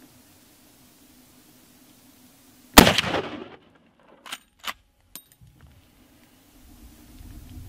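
A single .45-70 rifle shot from a Cimarron Model 71 lever-action carbine, very loud and sharp, with a short fading echo tail. About one and a half to two and a half seconds later come three short, sharp metallic clicks as the lever is worked to chamber the next round.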